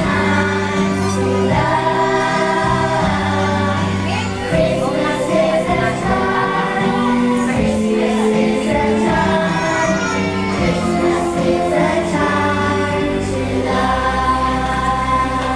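Young children's choir singing a Christmas song over instrumental accompaniment.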